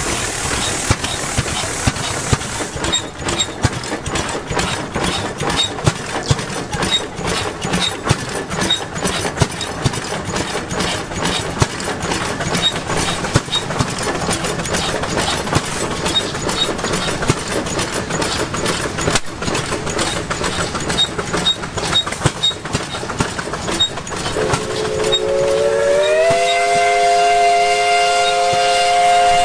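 Steam whistle sounding several notes at once as a chord. It comes in near the end, slides up in pitch as the steam builds, then holds a steady blast. Before it there is a busy clatter of sharp ticks from running machinery.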